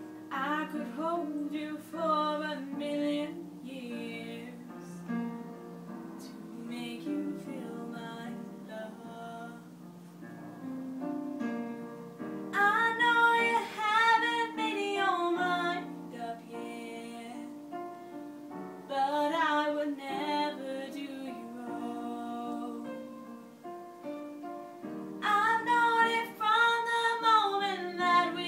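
A teenage girl singing a slow ballad solo over an instrumental accompaniment, her voice rising to louder phrases about halfway through and again near the end.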